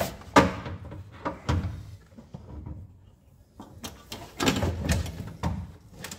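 Handling noises from work on a car's wiring loom and tools: a sharp knock about half a second in, another about a second and a half in, and a longer stretch of clatter and rustling near the end.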